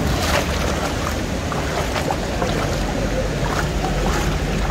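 Fast-flowing floodwater rushing down a street after a downpour, a steady rush.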